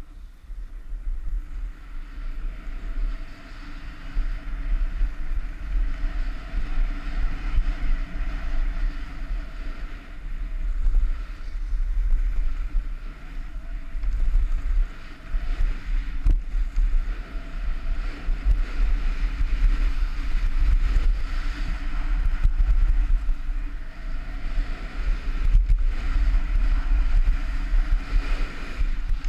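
Wind buffeting an action camera's microphone during a fast ski descent, a heavy gusting rumble, with skis hissing and scraping over packed snow.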